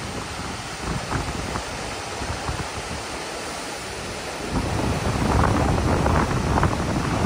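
Wind blowing across the microphone: a steady rushing with low buffeting rumbles, which grow stronger about four and a half seconds in.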